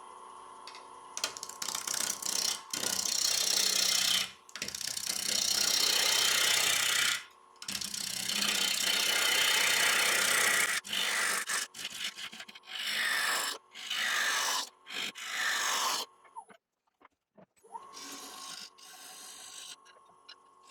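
Bowl gouge cutting a wet black locust blank spinning on a wood lathe: a loud hissing shear of shavings in several passes with short breaks. When the tool is off the wood, the lathe runs with a steady whine.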